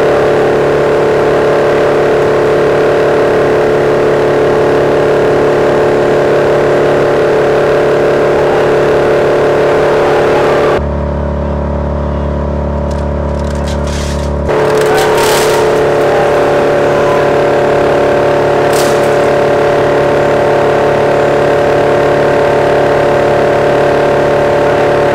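Wood chipper running steadily at constant speed, a loud even mechanical drone. A few light clatters come in the second half.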